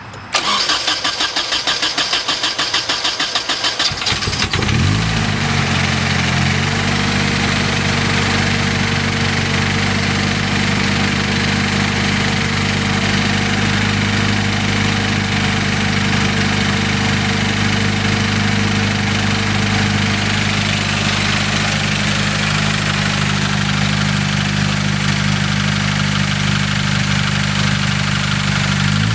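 Nissan KA24DE 2.4-litre four-cylinder engine cranked on the starter for about four seconds, catching and running up, then settling into a steady idle. It is making a noise from the block that the owner cannot place, wondering whether it is a rod knock, bearings going out, or something in the head.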